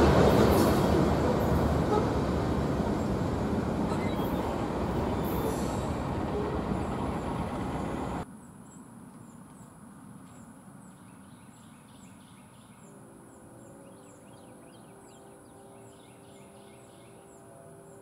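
A freight train rolling past, the noise of its cars and wheels fading steadily as it moves off, then cut off abruptly about eight seconds in. Faint chirping and a steady high hum follow.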